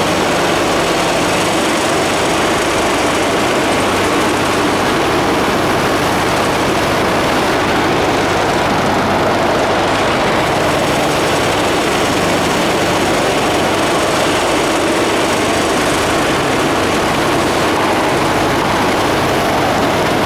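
Automated case-packing line running: a steady, dense machinery noise from the case erector, case packer and conveyor, with a low hum underneath.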